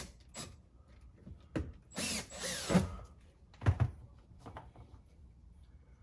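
Power drill with a step bit run in a few short bursts against the plastic dash panel, with a couple of sharp knocks about halfway through.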